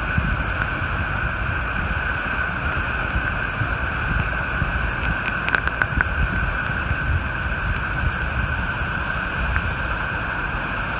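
Water gushing at high pressure from the Button Rock Dam's reservoir outlet and crashing into the St. Vrain River: a steady, loud rush.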